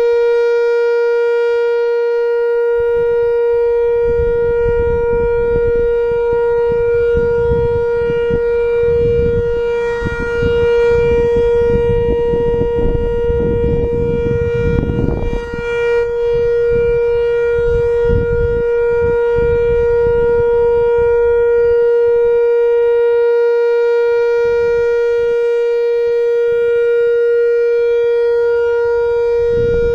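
Whelen WPS-4000-4 electronic warning siren, driven by its original ESC-864 analog controller, sounding a steady alert tone: one unwavering pitched note with no rise or fall. The owner finds it not very loud, likely from age and a couple of blown drivers. A low rumbling noise runs underneath for several seconds in the middle.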